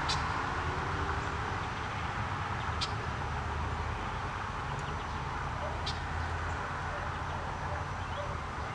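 Steady outdoor background noise with a low rumble, broken by three short, sharp, high-pitched bird chip notes about three seconds apart.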